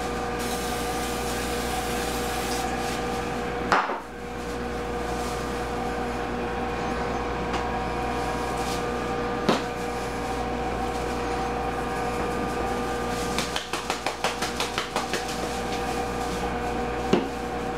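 Spice shaker being shaken over a raw chicken in a slow cooker: a quick run of rattling taps about two-thirds of the way in. It is set against a steady hum with several pitches, and there are a few sharp knocks as bottles and the crock are handled.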